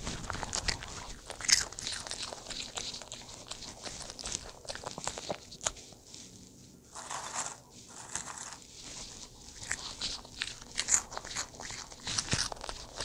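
Small dog crunching and chewing crisp dried vegetable snacks, a run of sharp crunches with a short lull about halfway through.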